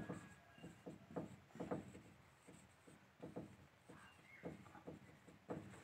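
Faint writing by hand: a string of short, irregular scratching strokes and light taps.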